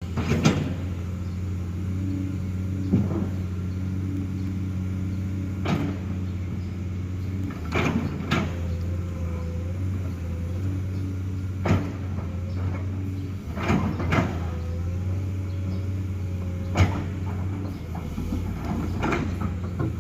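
Komatsu PC210 hydraulic excavator with its diesel engine running steadily, punctuated by about ten sharp clanks or knocks every second or few seconds as the machine works. A faint wavering whine runs over the engine in places.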